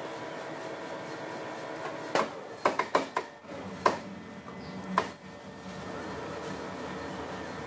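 Metal lathe running with a steady hum while turning a steel shaft and cutting a spiral groove in it. A run of sharp clicks and knocks comes between about two and five seconds in.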